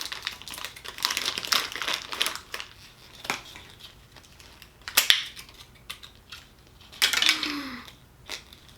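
Crinkly blind-bag toy packaging being handled and torn open, with a few sharp clicks and a louder burst of crinkling near the end.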